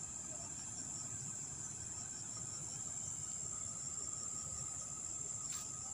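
Steady high-pitched insect chorus, crickets trilling without a break, over a low rumbling background. A single short click sounds near the end.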